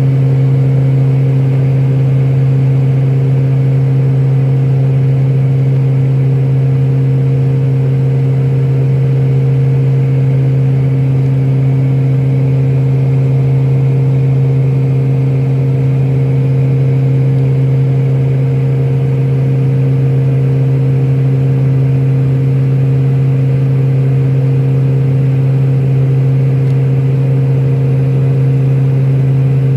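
Steady drone of a turboprop airliner's engines and propellers heard from inside the cabin: a loud, unchanging low hum with fainter steady tones above it over a rushing background.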